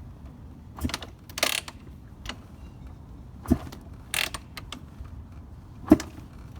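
Gas Gas EC250 two-stroke dirt bike engine being turned over but not firing, with a low gurgling sound. Sharp mechanical clacks come every second or two.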